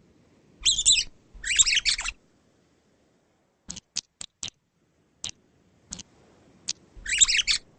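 Bird-like chirping and twittering in three short bursts, two close together and one near the end, with a string of light, sharp clicks in between.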